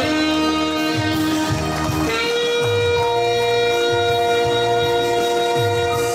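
Live nakashi band playing the instrumental close of a song: a long held note steps up to a higher held note about two seconds in, over a moving bass line.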